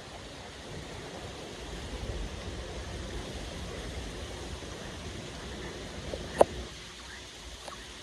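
Steady rain with wind gusting low underneath. A single sharp tick stands out about six and a half seconds in, with a few fainter ticks near it.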